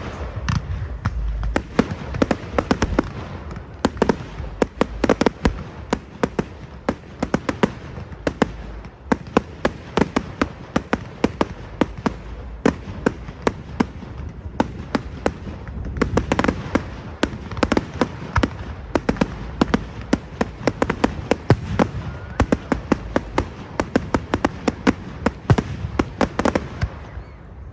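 Fireworks going off: a dense, continuous stream of sharp crackling pops, many a second, over a low rumble, dying away near the end.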